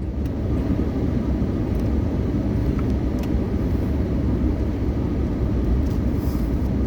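A car running at road speed, heard from inside the cabin: a steady low rumble of engine and road noise, with a few faint ticks.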